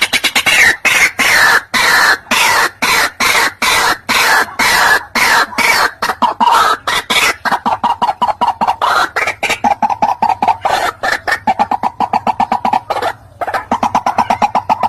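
White-breasted waterhen calling: a long, rapid series of loud, harsh repeated notes.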